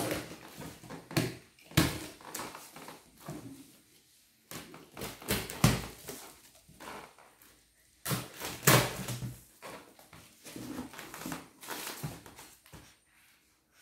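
A cardboard parcel being unpacked by hand: packing tape and plastic wrap cut and torn, cardboard flaps and styrofoam packing handled, in a run of irregular rustles and scrapes with a few louder ones.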